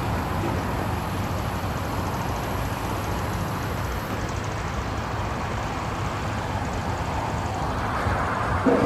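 Mobile crane's diesel engine running steadily as it holds and lowers a load, with a short, louder sound near the end.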